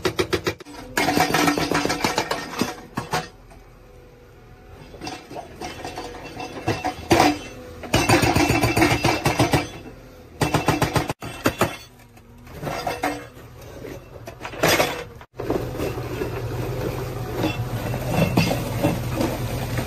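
Hydraulic rock breaker on a JCB backhoe loader hammering rock in rapid strikes, in bursts of one to a few seconds with pauses between. The diesel engine runs underneath, and for the last few seconds the hammering runs on steadily.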